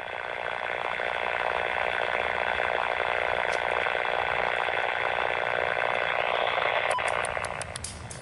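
Amtrak P32AC-DM diesel locomotive's air horn sounding one long, steady chord as the train approaches, cutting off near the end, followed by a few light clicks.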